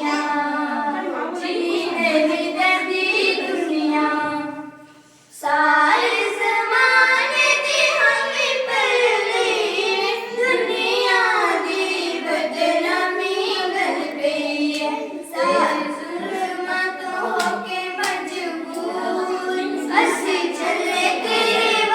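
A group of schoolchildren singing together, with a short break about five seconds in before the singing picks up again.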